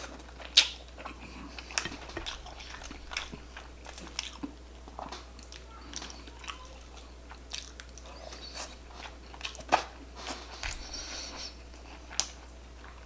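Close-miked eating: a person biting and chewing jumbo shrimp in butter sauce, with scattered wet clicks and smacks of the mouth. The loudest are about half a second in and twice near the end.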